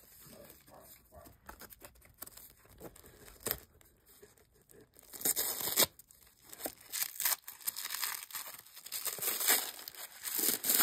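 Yellow tissue paper being torn and crinkled off a gift box by hand. There are scattered rustles at first, then steady crackling and tearing from about five seconds in.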